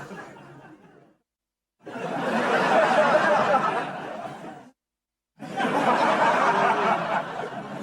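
Canned studio-audience laughter from a sitcom laugh track. A laugh fades out, then two separate bursts of crowd laughter follow, each about three seconds long. Each burst starts and stops abruptly, with short gaps of dead silence between them.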